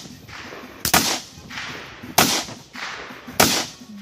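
Three rifle shots about a second and a quarter apart, each a sharp crack with a short fading echo.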